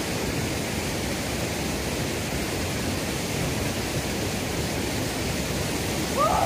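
Steady rushing noise of fast-flowing water, even and unbroken. Near the end, a brief pitched call rises and falls once.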